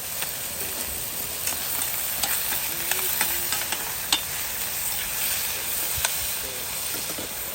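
Cooking utensils tapping and scraping against a pot and bowls, scattered clicks over a steady sizzling hiss, as rice is scooped out for serving.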